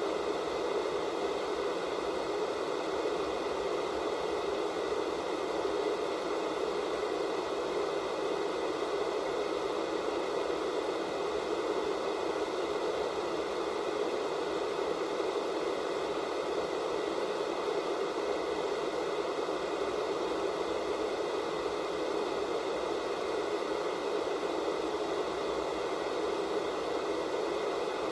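Analog television static from an untuned TV with no signal: a steady, even hiss, strongest in the lower middle, with a few faint steady tones.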